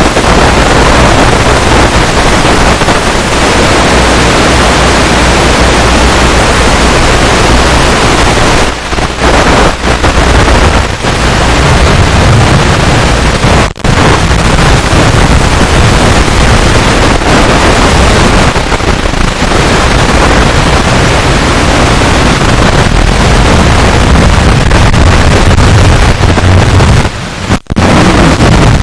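Loud, steady hiss of static from the FPV headset's analog video receiver audio channel, broken by a few brief dropouts, the clearest about halfway through and shortly before the end.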